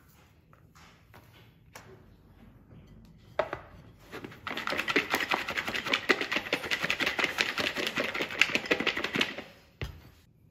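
Knife chopping on a cutting board: a fast, even run of strokes lasting about five seconds, starting a little before halfway. A single sharp knock comes a second or so earlier.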